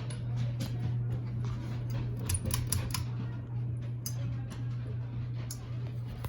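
Several ceiling fans running, a steady low motor hum with irregular light clicks and ticks over it.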